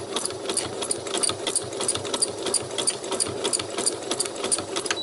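Domestic sewing machine running steadily in zigzag mode during free-motion embroidery: a motor hum under a quick, even ticking of the needle going through the fabric.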